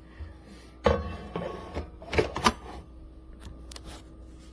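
Coffee carafe and its screw-on lid being handled: a series of sharp plastic-and-metal clicks and knocks, loudest in the first half, then a few fainter ticks.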